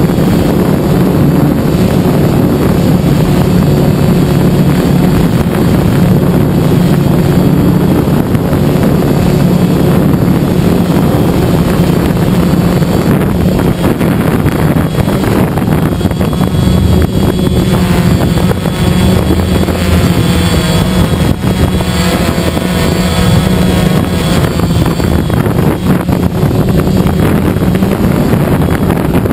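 DJI Phantom quadcopter's electric motors and propellers running, recorded by the camera on board: a loud, steady buzzing hum with wind noise on the microphone. About halfway through, a higher whine wavers up and down in pitch.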